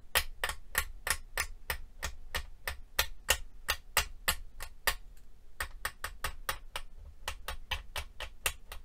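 A long flexible clay blade chopping polymer clay into crumbs, clicking sharply each time it comes down on the glass work mat. The clicks come at about three a second and quicken in the second half.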